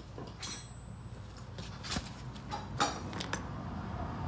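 A few short, light clicks and knocks as hands and a small tool work at a truck wheel and tyre, over a low steady hum.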